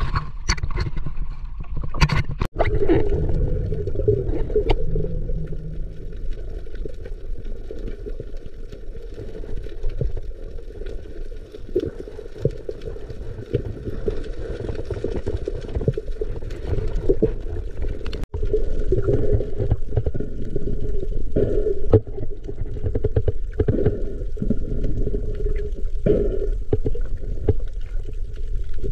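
Muffled water sound as picked up underwater: a steady low rumble with scattered sharp clicks.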